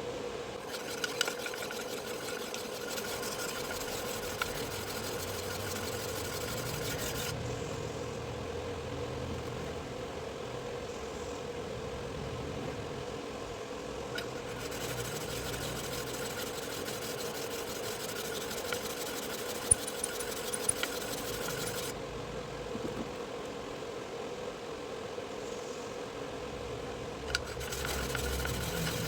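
Electric sharpening machine running with a steady hum. In three long stretches a higher grinding hiss joins it, metal of the mincer blade or plate against the abrasive, with a few small clicks.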